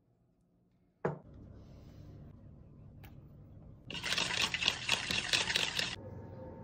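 Metal wire whisk beating an egg into oil in a plastic bowl: a fast, scratchy rattle of rapid strokes for about two seconds that stops abruptly. A single sharp click comes about a second in.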